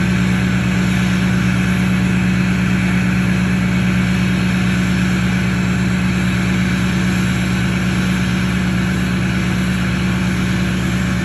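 LBZ Duramax 6.6-litre turbo-diesel V8 of a 2007 Chevy Silverado idling steadily through an MBRP exhaust, held at a raised high idle while it warms up from a cold start. The pitch and loudness stay even throughout.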